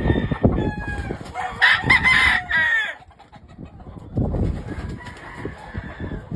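A gamecock crowing once, a drawn-out call starting about one and a half seconds in, with shorter chicken calls before it and a low rumble on the microphone.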